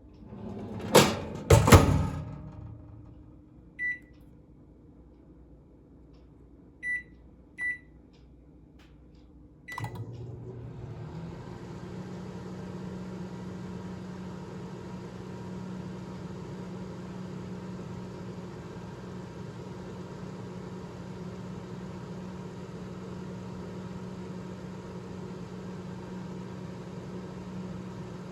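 Kenmore microwave and pizza oven combo being started in oven mode. Two knocks, then short beeps from the control keys. A click about ten seconds in, and the oven runs with a steady hum.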